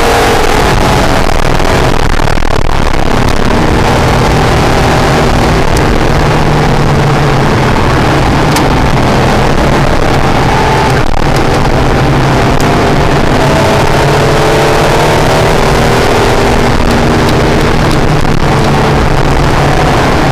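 Acura NSX's mid-mounted V6 running hard at track speed, heard from inside the cabin, its pitch climbing and falling as the car accelerates and lifts through the corners.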